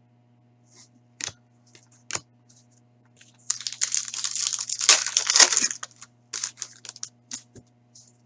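Foil wrapper of an Upper Deck Artifacts hockey card pack being torn open and crinkled. It is loudest from about three and a half to six seconds in, with two sharp clicks of cards being handled before it and light rustles as cards come out after.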